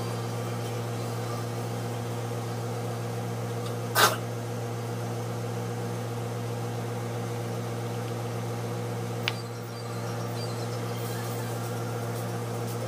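Steady low mechanical hum, with one short loud noise about four seconds in and a faint click a little after nine seconds.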